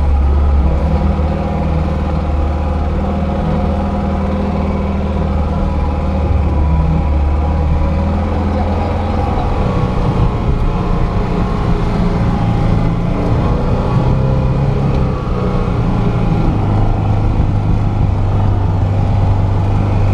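Lada Niva 2121's four-cylinder petrol engine running steadily at low revs while the car drives off-road, heard from inside the cabin, its pitch shifting slightly a few times.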